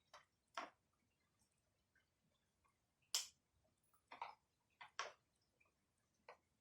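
Light clicks and knocks of parts and tools being handled during disassembly of a brushcutter, about seven short separate sounds spread irregularly, the loudest a little after three seconds and about five seconds in.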